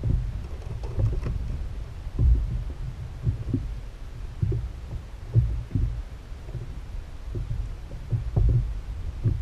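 Small waves slapping against an inflatable kayak's hull, heard as dull, irregular low thumps about once a second through the boat-mounted camera over a low rumble.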